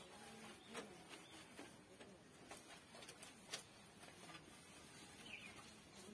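Near silence: faint outdoor ambience with a short, low bird call just after the start, a few soft clicks, and a brief high chirp that falls in pitch about five seconds in.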